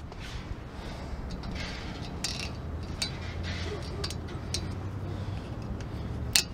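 Small metallic clicks and clinks of needle-nose pliers working the sheet-metal factory rotor retaining clips off the wheel studs of a disc brake rotor, with a sharper click near the end.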